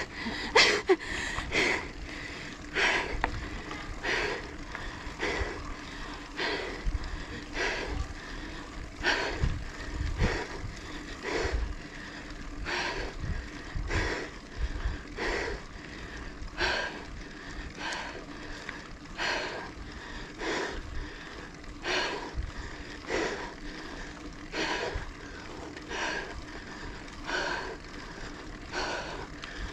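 Heavy, rhythmic panting of a cyclist working up a steep climb, a quick breath a little over once a second, over the steady hum of the bike and wind on the microphone.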